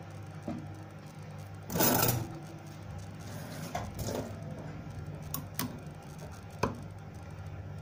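A metal spoon clinking against a ceramic mug of tea while it presses the tea bags, a handful of sharp clicks over a steady low hum. About two seconds in comes a louder half-second scraping rush.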